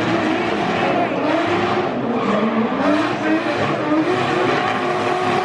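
Drift car driven hard through a slide, its engine revving up and down over a steady screech of spinning tyres. The engine pitch dips about two seconds in, then climbs again.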